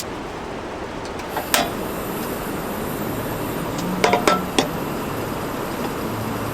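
Dishes and glassware clinking at a table: one ringing clink about a second and a half in, then three quick clinks around four seconds in, over a steady hiss.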